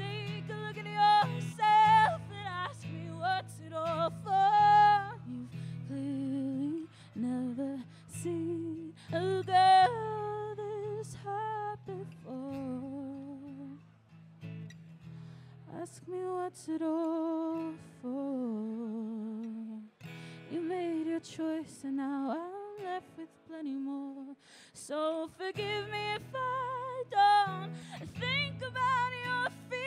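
A woman singing live with a strummed acoustic guitar. The guitar drops out for a few seconds around the middle while her voice carries on alone.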